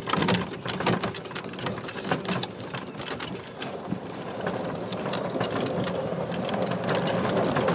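Golf cart running across rough ground, its body rattling and clicking, with the motor note growing steadier and a little louder in the second half.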